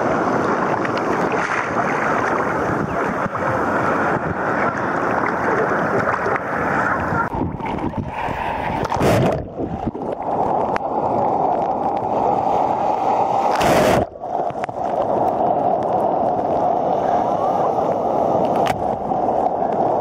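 Sea surf washing and churning around a camera held right at the water's surface. About seven seconds in the sound turns muffled as the camera goes under, with two sharp loud splashes around 9 and 14 seconds.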